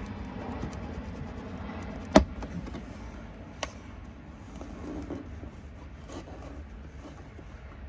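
A sharp snap about two seconds in, with a smaller click about a second and a half later, as the plastic A-pillar trim is pulled away from its retaining clips. Faint ticks of handling run between them.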